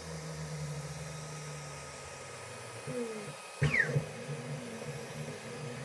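FLSun V400 delta 3D printer running at the start of a print: its stepper motors and fans give a steady hum, then a brief falling whine and a knock about halfway through, after which the motors set up a quick, evenly pulsing whir as the printhead makes rapid short moves.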